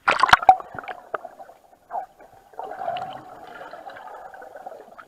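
Swimmer in a pool heard underwater through a waterproof camera case: a burst of splashing knocks, then muffled bubbling and gurgling from about halfway through.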